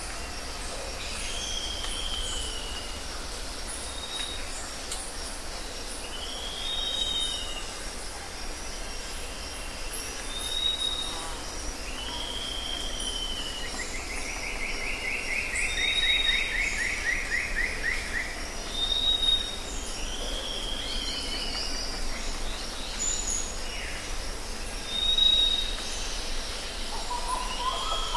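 Birds singing: short arching whistled phrases repeat about every two seconds with brief higher notes between them, and one longer falling trill comes about halfway through, over a steady low background rumble.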